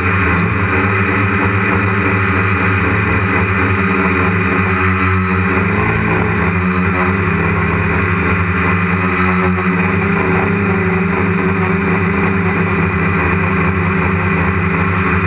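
Quadcopter's electric motors and propellers running steadily in flight, heard from a camera mounted on the frame: a loud, even drone made of several steady tones.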